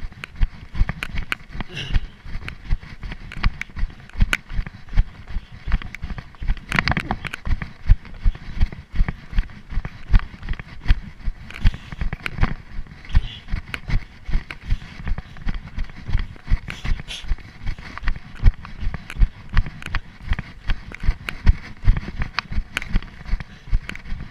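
Running footfalls on dry grass and brushwood, an even thump about three times a second with sharp crackles of dry stems, picked up by a chest-mounted GoPro that jolts with each stride.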